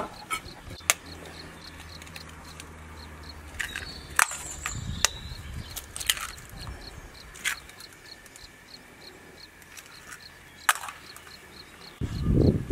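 Scattered sharp clinks and taps of a glass bowl, utensils and an egg against a large aluminium cooking pot as ingredients go into the mixture. Behind them insects chirp steadily at about four chirps a second, and a louder rustle starts near the end as flour is poured.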